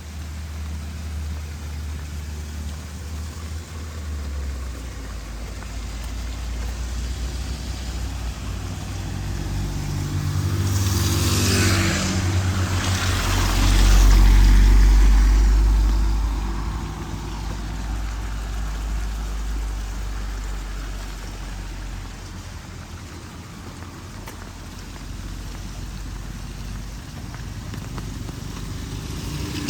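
A motor vehicle passing by: a low engine hum builds up, peaks with a rush of tyre noise and a loud rumble about halfway through, then fades away, over a steady hiss of rain.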